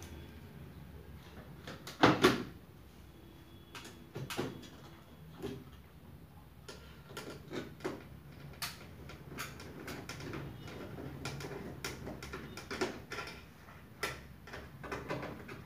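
Scattered clicks, taps and knocks of hands working on the electrical box of a Daikin VRV ceiling cassette air-conditioner indoor unit, handling its plastic and metal parts, with a loud double knock about two seconds in, over a low steady hum.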